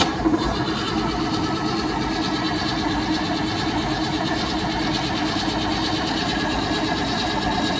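454 big-block V8 being cranked over on its starter motor with a compression gauge fitted to cylinder 3, a steady whir with an even rhythmic pulse. The cylinder builds about 110 psi, the lowest of the cylinders tested so far.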